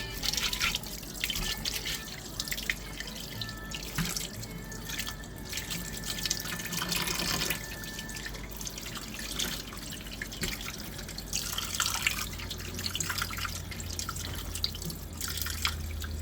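Tap water running and splashing into a sink, with scattered drips, clicks and knocks.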